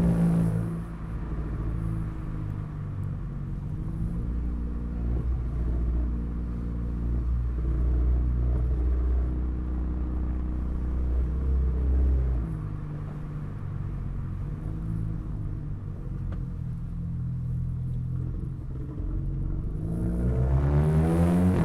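Exhaust of an Audi A3 2.0 TFSI turbocharged four-cylinder with an aftermarket downpipe and cat-back, running with a steady low rumble, then rising in pitch as the engine revs up under acceleration near the end.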